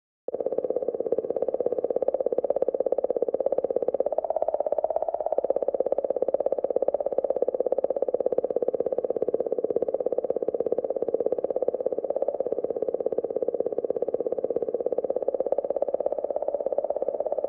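The 'singing' of Comet 67P recorded by ESA's Rosetta probe. Oscillations of the magnetic field around the comet at 40–50 millihertz, sped up 10,000 times, become a steady, rapidly pulsing, slightly wavering hum. It starts suddenly right at the beginning.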